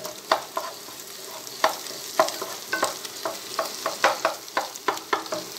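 Wooden spatula stirring scrambled egg in a pot, knocking and scraping against the pot at an uneven two or three times a second, over a faint sizzle of the egg frying in oil.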